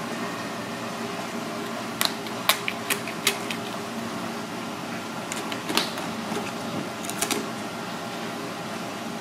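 Kitchen knife ticking and tapping against the cutting board while a red cornetfish is cut open: a quick run of sharp clicks a couple of seconds in, then a few more scattered ones. Under them runs a steady background hum like a fan or air conditioning.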